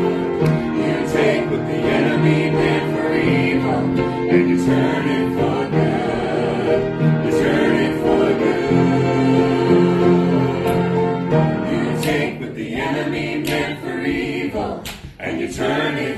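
A small mixed group of men and women singing a gospel worship song in harmony, with held chords; the sound thins out and gets choppier about three-quarters of the way through.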